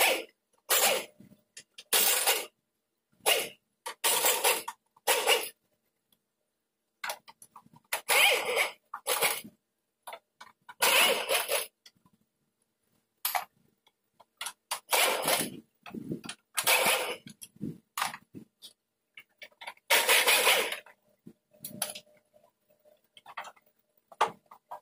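Repeated short bursts of scraping and clattering as front-end body parts of a pickup truck are handled and pulled loose, each burst under a second with silent gaps between.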